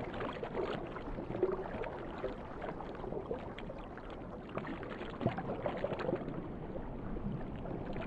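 Muffled underwater ambience: a steady wash of water noise with scattered faint clicks and short pops.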